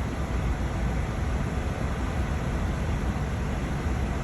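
Steady drone of aircraft cockpit noise, engine and airflow, with a strong low rumble and even hiss throughout.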